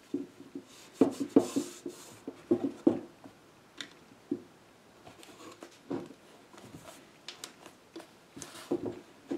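Scattered light wooden knocks and brief rubbing as an upholstered slip seat is handled and pressed down into an oak chair's seat frame, a tight fit.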